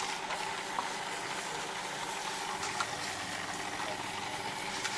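Water spray bottle misting a client's hair with a steady hiss, with a few faint clicks.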